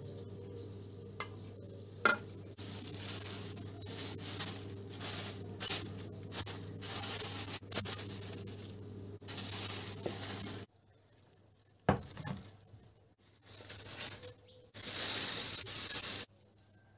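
Plastic cling film crinkling and rustling as it is handled over a stainless steel bowl of kebab mince, in irregular bursts. Two sharp clinks come in the first couple of seconds.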